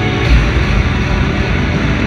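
Instrumental post-rock band playing loud and live: layered electric guitars ringing over drums and bass, with a heavy low hit near the start. Heard from within the audience, with a boomy low end.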